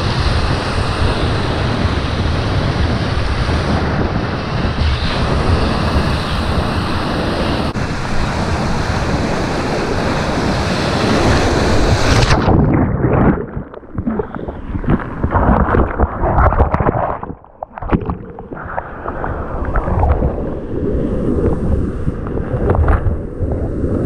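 Colorado River whitewater rushing and splashing around a packraft, loud and steady. About halfway through the sound turns muffled and choppy, with brief drops, as the raft hits a lateral wave and water splashes over the microphone.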